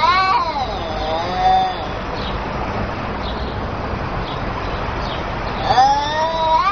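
Domestic cat meowing: a meow right at the start, a fainter one about a second in, and a longer, rising-and-falling meow near the end, over a steady background hiss.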